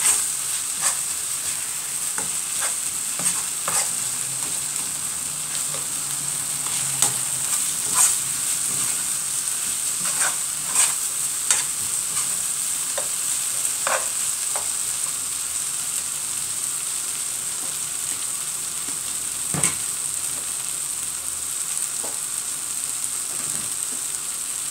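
Chopped onion, shallot and ground garlic-candlenut paste sizzling steadily as they fry in margarine in a pan, with the spatula clicking and scraping against the pan now and then as it is stirred.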